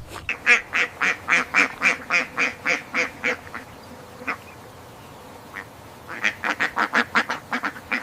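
Domestic fowl calling in two quick runs of short, quack-like calls, about four a second. The first run lasts about three seconds; after a pause with a couple of single calls, a second shorter run comes near the end.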